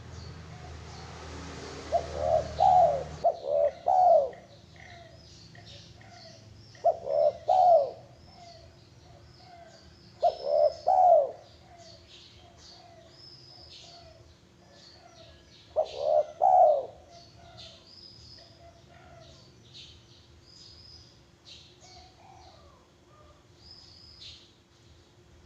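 Zebra dove (perkutut) cooing: about five short phrases of quick rolling coos, a few seconds apart. Faint high chirps from other birds sound in between.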